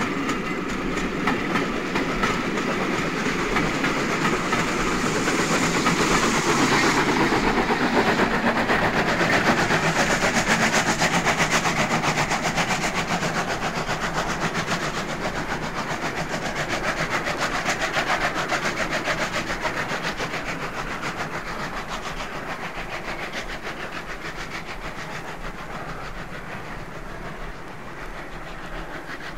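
Steam locomotives working hard on a steep climb with an express, pilot and banking engines together: a fast, continuous chatter of exhaust beats that grows to its loudest about a third of the way in, then fades steadily as the train draws away.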